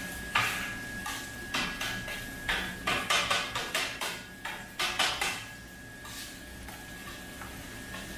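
Metal spatula clanking and scraping on a flat-top steel griddle, chopping kottu roti with egg in a quick, irregular run of strikes that dies away after about five seconds.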